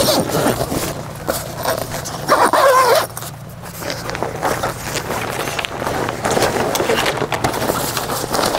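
An animal call, drawn out and rising then falling in pitch, about two and a half seconds in, over a steady clatter of clicks and noise.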